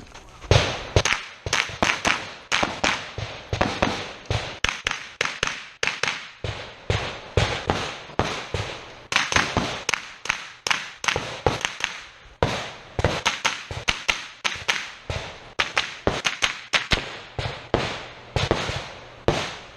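A rapid string of rifle shots fired through a timed stage, dozens of sharp cracks at several a second. There are short breaks in the firing about six, twelve and eighteen seconds in.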